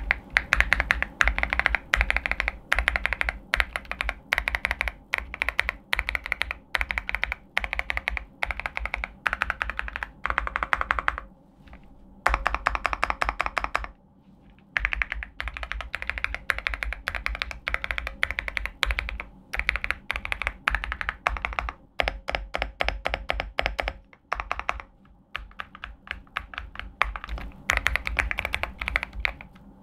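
Typing on an Epomaker Shadow-S mechanical keyboard fitted with linear Moulin switches: quick runs of keystrokes with a soft, muted 'koto-koto' sound, broken by a few brief pauses.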